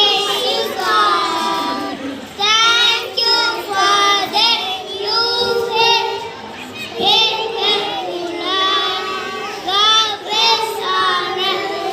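A young child singing a song in a high voice, phrase after phrase with short breaks.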